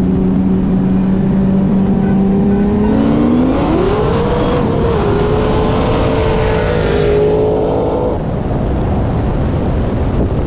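Street-race cars, a single-turbo 2JZ Toyota Supra and a Kenne Bell–supercharged 2003 Mustang Cobra, held at steady revs and then launched hard. Engine pitch climbs steeply about three seconds in, dips briefly near five seconds as at a gear change, and holds high before fading about eight seconds in.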